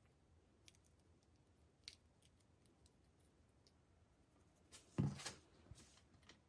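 Near silence with a few faint ticks, then about five seconds in a short burst of rustling and knocking as hands handle the plastic food dehydrator tray and its parchment paper lining.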